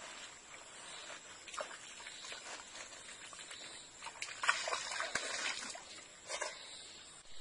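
Shallow stream water sloshing and trickling with leaves and plants rustling as hands work at the water's edge, with a louder stretch of splashing and rustling about four and a half to six seconds in and another short burst just after.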